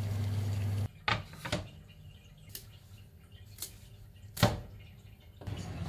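A kitchen knife cutting through a head of broccoli on a wooden cutting board: a few separate sharp knocks spread over several seconds as the blade meets the board, the loudest about four and a half seconds in. A steady low hum runs under the first second before the knocks begin.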